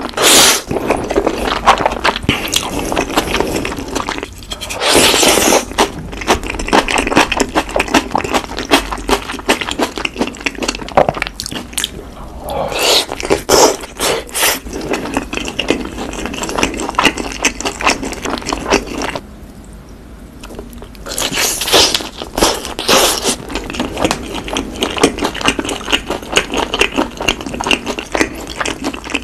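Close-miked eating: chewing and slurping black-bean-sauce noodles and sticky sauced boneless fried chicken, a dense run of wet smacks, clicks and crackles. There is a brief quieter stretch about two-thirds of the way through.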